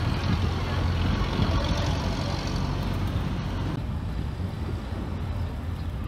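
Steady low rumble of street traffic, mixed with wind buffeting the microphone. The higher hiss thins out suddenly about four seconds in.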